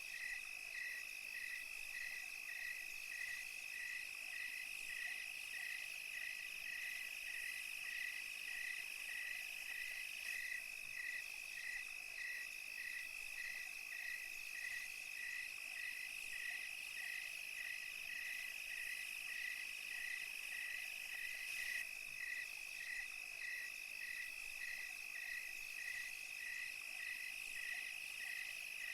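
Night insect chorus of crickets: a steady high trill with a second insect chirping in an even, regular rhythm about once every 0.7 seconds, over a faint high hiss.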